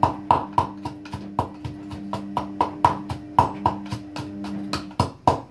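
Garlic being crushed by hand: rhythmic knocks, about three a second, over background music that cuts off near the end.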